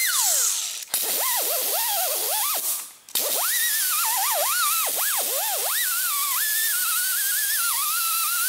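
Right-angle air grinder spinning a green plastic bristle disc on the cast-iron deck of a Caterpillar 1693 engine block to remove old gasket material: a high whine over hissing exhaust air. The pitch sags and recovers as the pad bites and eases off. It cuts out briefly about a second in and again near three seconds, then runs on steadily.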